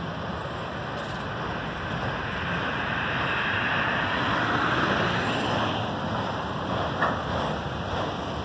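Autorack freight cars rolling past on the rails: a steady rush and rumble of wheels on track that swells through the middle. A single sharp knock comes about seven seconds in.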